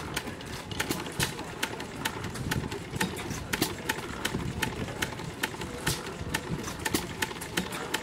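Small vintage stationary engine running steadily, driving a geared water pump, with a sharp ticking clatter about three times a second.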